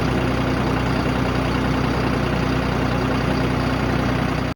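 An engine running steadily at an even speed, with no revving, cutting off abruptly at the end.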